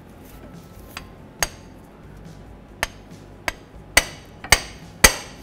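Hammer striking a freeze plug installer tool to drive a new steel freeze plug into the engine block: about seven sharp metallic taps, light and spaced at first, then three harder blows about half a second apart near the end.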